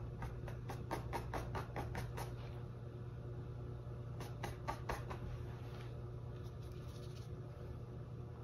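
Small paintbrush flicking acrylic paint onto canvas in quick short strokes: a run of about eight strokes, roughly four a second, in the first two seconds, and another run of four or five about four seconds in, over a steady low hum.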